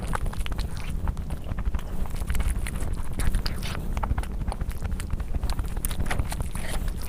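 Close-miked chewing and wet mouth clicks from eating spicy egg curry: many short, irregular clicks over a low rumble.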